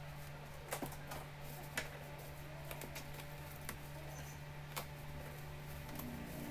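Plastic wrapping on a taped parcel being handled and then cut with scissors: faint crinkling and scratching with a few sharp clicks, over a steady low hum.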